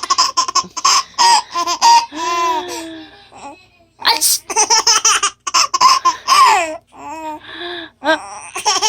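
Baby laughing: rapid strings of giggles and high squeals that fall in pitch, in two bouts with a short pause about three seconds in, a delighted reaction to the mother's sneezes.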